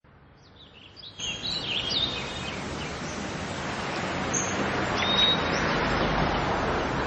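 Birds chirping in short calls over a steady background noise that grows steadily louder.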